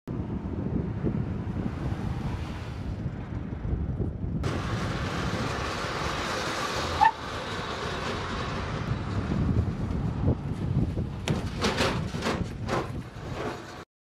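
Car running on an outdoor test track, a steady low rumble with wind noise on the microphone. A short high blip comes about halfway through, and a run of sharp wind gusts hits the microphone near the end.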